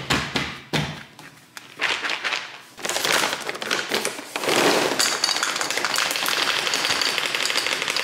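Dry cat kibble being poured from its bag into a bowl: a dense, steady rattling clatter of pellets that starts about two seconds in. A sharp knock and a few clicks at the start as the plastic food container's lid is pressed shut.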